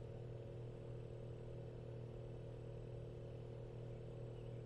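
Faint, steady low hum with a light hiss, unchanging throughout.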